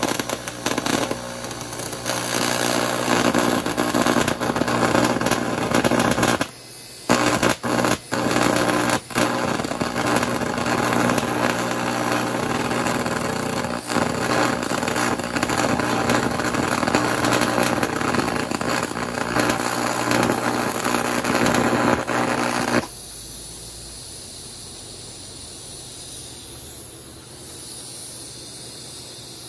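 AC TIG welding arc from a vintage Miller Econotig welder on quarter-inch aluminum: a loud steady buzz that cuts out briefly a few times around seven to nine seconds in, a sign of an unstable arc. About three-quarters of the way through the arc stops suddenly, leaving a quieter steady hiss.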